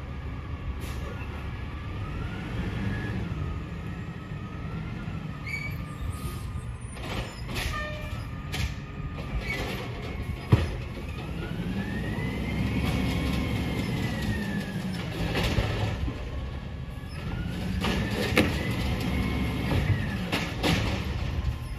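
Garbage truck's diesel engine running as it pulls slowly forward, its pitch rising and falling as it revs, with a whine that climbs and drops along with it. Several sharp clanks come from the truck body, one loudest about halfway through.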